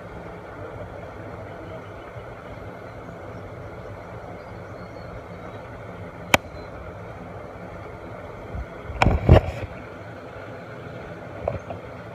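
A steady low mechanical hum, with a single sharp click about six seconds in and a few loud knocks around nine seconds.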